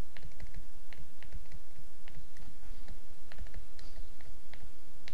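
Stylus tapping and scratching on a tablet screen during handwriting: a string of irregular light clicks over a steady low background hum.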